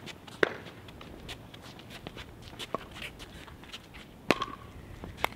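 Footsteps of players moving on a hard outdoor pickleball court, with three sharp pops of a plastic pickleball: one about half a second in and two near the end.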